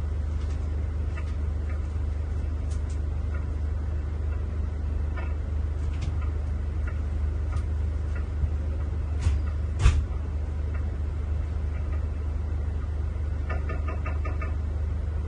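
Steady low drone of the Scania engine of a Marcopolo Paradiso 1800 DD G7 double-decker coach on the move, heard inside the cabin. A few sharp knocks or rattles come about nine and ten seconds in, the one at ten seconds the loudest.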